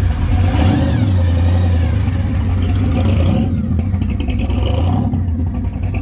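A car engine running loud with a deep exhaust note and revving, an engine eager to climb to high RPM.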